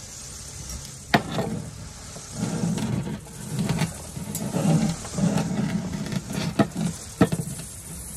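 A few sharp metal clicks and taps as the stainless steel box-section frame and the welder's earth clamp are handled and set in place, over an uneven low rumble that comes and goes.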